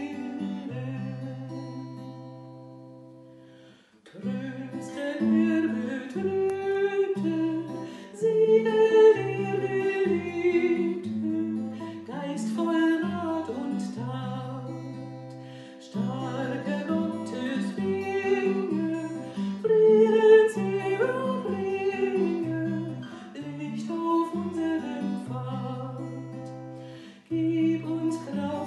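Acoustic guitar played with a woman singing along to it. The music dies away to a pause twice, about four seconds in and shortly before the end, then starts again.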